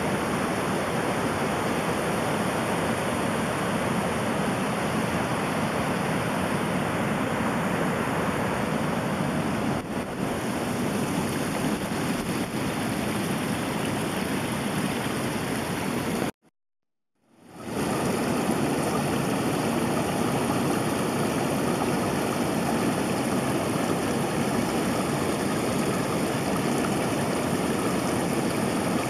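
Steady rushing of flowing water, broken by about a second of silence some sixteen seconds in, after which it resumes.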